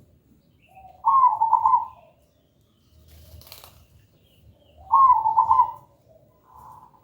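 Zebra dove (perkutut) singing its clear, high cooing phrase twice, about four seconds apart, with a fainter short coo near the end. A brief rustling noise comes between the two phrases.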